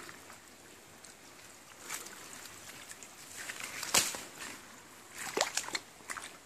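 Water sloshing and splashing in a shallow stream, in a few short scattered bursts. The sharpest splash comes about four seconds in, and a small cluster follows over the next second or two.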